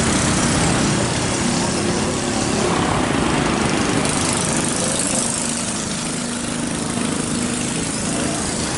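Street traffic: motor scooters and cars running and passing, a steady mix of small engines and road noise.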